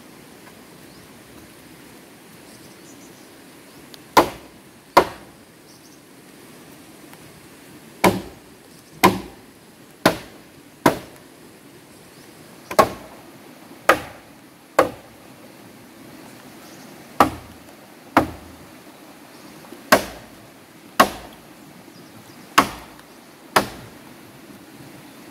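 Axe chopping wood: about fifteen sharp strikes, mostly in pairs about a second apart, with short pauses between the pairs.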